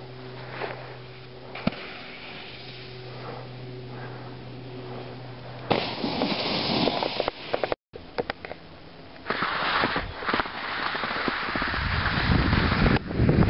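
Skis or a board scraping and chattering over hard-packed snow in two loud, crackly stretches, about six seconds in and again from about nine seconds, with wind buffeting the microphone building near the end.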